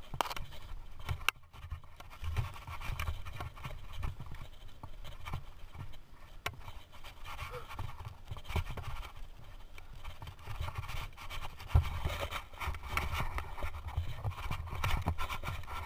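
Mountain bike rolling fast down a dirt forest trail: tyres on dirt and leaves under a constant low rumble, with scattered sharp knocks and rattles as the bike goes over bumps.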